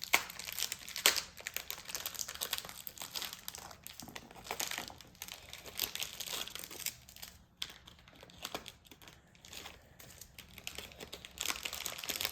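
Plastic packaging of a slime kit crinkling and rustling as it is handled and unwrapped, in irregular crackles with the sharpest ones near the start.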